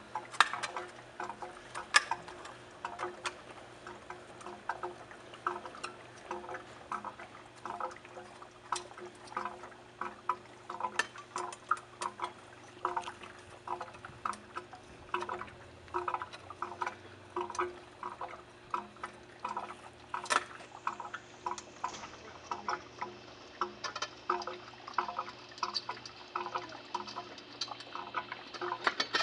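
Flathead screwdriver backing out the screws of a pool pump motor's rear electrical cover: a long run of irregular small metal clicks and scrapes, over a steady low hum.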